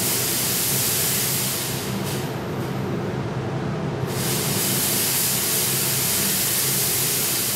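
Fog machine hissing as it jets out smoke, easing off about two seconds in and coming back strongly about four seconds in. Under it, the steady low hum of a powerful mobile extraction fan.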